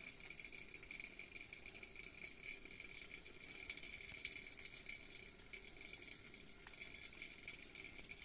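Near silence: a faint steady high-pitched hum with a few scattered faint ticks.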